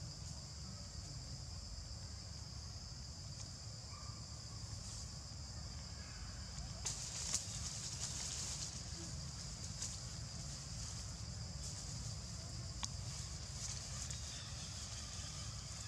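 Steady high drone of insects over a low rumble, swelling briefly about halfway through, with a single sharp click near the end.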